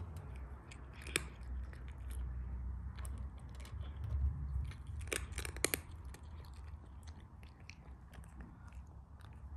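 A cat crunching dry kibble from a stainless steel bowl: irregular sharp crunches, with a cluster of louder ones about five seconds in.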